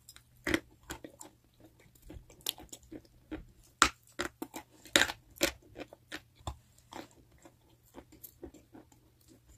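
Close-up crunching and chewing of hard chalk: irregular sharp crunches as pieces are bitten off and ground between the teeth, the loudest two a little before four and at five seconds in.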